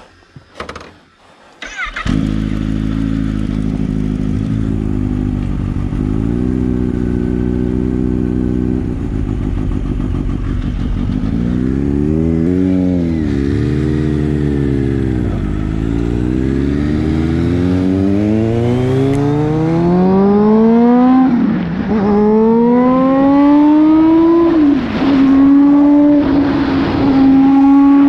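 A motor vehicle's engine starts up about two seconds in and idles, is revved up and back down once, then accelerates away. Its pitch climbs, drops sharply at two upshifts, and settles to a steady cruise near the end.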